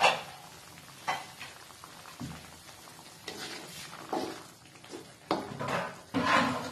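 Teriyaki sauce and meat broth bubbling at the boil in a wok, with irregular pops and crackles. A sharp clack at the start and a louder knock near the end.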